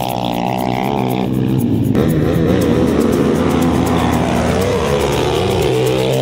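Sport quad (ATV) engines racing at full throttle down a dirt drag strip, their pitch rising and falling several times.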